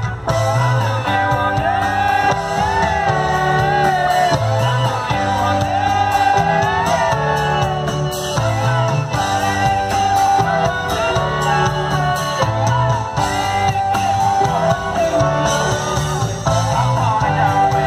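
Live rock band playing loudly, heard from the audience: a melody line that bends up and down over a repeating bass line.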